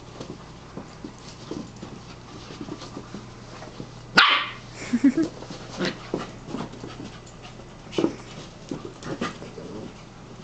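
Two puppies playing, with one sharp, loud bark about four seconds in and short scuffling sounds scattered before and after it.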